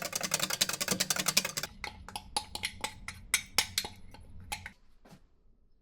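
Batter being beaten in a mixing bowl as butter is added: fast clicking of beaters against the bowl that slows to separate clicks about two seconds in, over a low steady hum. Both stop near the end.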